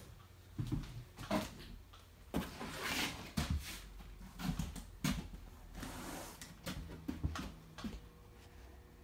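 Scattered soft knocks and scuffs, like footsteps on a concrete floor and a handheld phone being moved, over a low steady hum.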